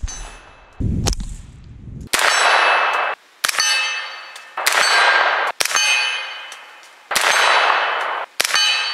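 Colt AR-15 9mm carbine fired semi-automatic: about six single shots, each followed by a long metallic ringing that fades.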